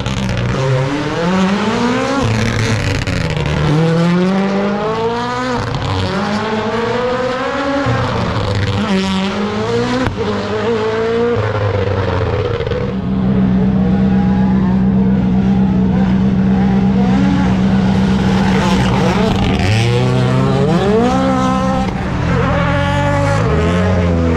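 Hyundai i20 N rally car's turbocharged four-cylinder engine being driven hard, its pitch climbing through the gears and dropping on lifts and downshifts again and again. About halfway through it holds one steady note for several seconds, then rises and falls again near the end.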